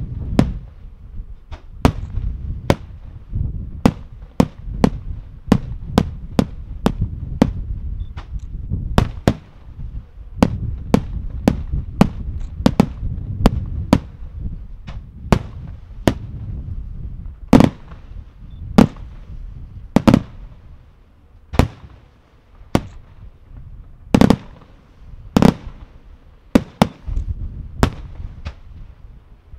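Aerial firework shells bursting in quick, irregular succession: sharp reports one or two a second over a continuous low rumble, with a few heavier booms in the second half.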